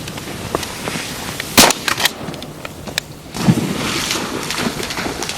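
A shotgun fired at a flushing duck: one sharp, loud blast about a second and a half in. Lighter clicks follow, then a duller bang about two seconds later.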